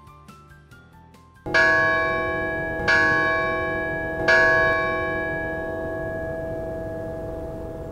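Closing music: a short rising run of quick high notes, then a deep bell struck three times about a second and a half apart, ringing on and slowly fading.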